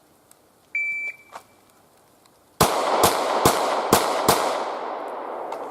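Shot timer's start beep, a single high tone, then about two seconds later five 9mm pistol shots from a Glock 17 fired in quick succession, roughly 0.4 s apart, each echoing with a long fading tail.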